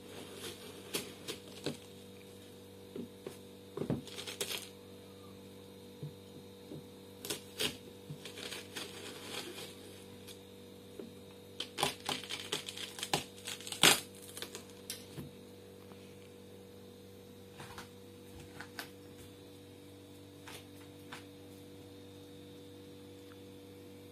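A kitchen knife cutting through a whole watermelon on a plastic cutting board: irregular crackling and snapping of the rind and flesh, busiest a little past halfway with one sharp loud snap, then only a few faint clicks. A steady low hum runs underneath.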